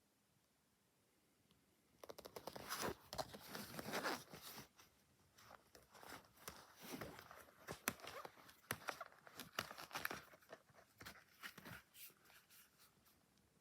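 Plastic shrink wrap being torn and crinkled, in irregular crackling bursts with sharp clicks. It starts about two seconds in and dies down near the end.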